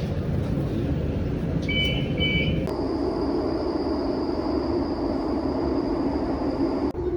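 Steady low rumbling background noise, with a short double electronic beep about two seconds in. Just after the beep the background changes abruptly and a steady high-pitched whine runs until near the end.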